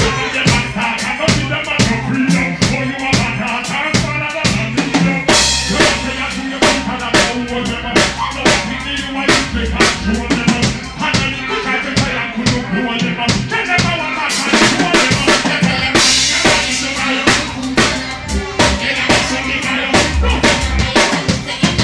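Beatboxing into a handheld microphone amplified through a PA: a voice imitating a drum kit, with kick-drum, snare and rimshot sounds in a steady beat. Longer hissing cymbal-like sounds come about five seconds in and again near sixteen seconds.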